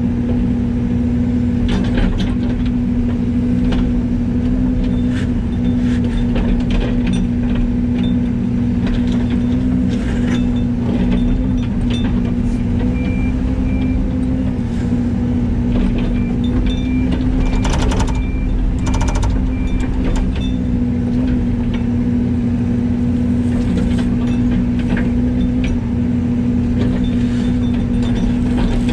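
Heavy diesel engine running steadily, a constant low drone with light rattles over it.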